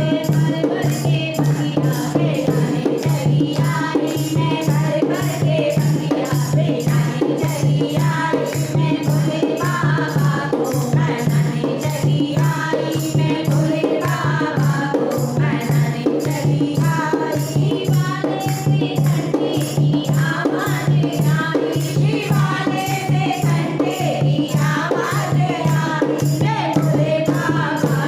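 Devotional kirtan music: a group singing a Hindi Shiva bhajan over a steady low drone, with shaken rattle-type percussion keeping an even beat.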